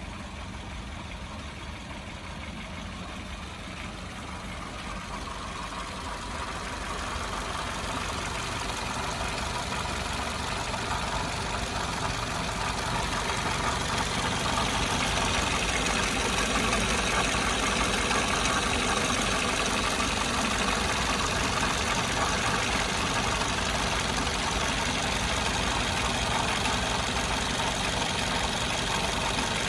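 Toyota Vitz running, with the unwanted noise its owner is trying to show. The overall sound grows louder over the first fifteen seconds or so, then holds steady.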